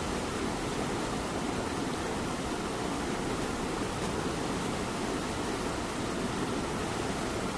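Cat purring steadily, blended with the even hiss of light rain.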